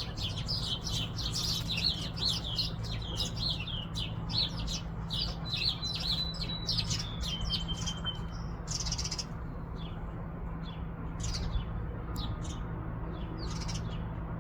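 Small songbirds chirping and twittering in quick overlapping calls, densest in the first half and thinning out after, with a thin held whistle note about six seconds in. A brief hiss comes about nine seconds in, over a steady low hum.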